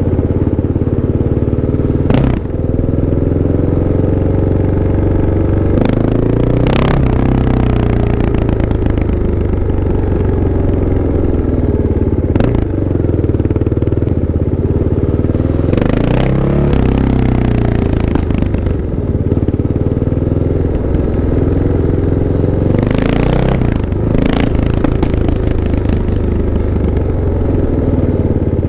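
Kawasaki KLX 650's single-cylinder four-stroke engine running, its revs rising and falling several times, with occasional sharp clacks.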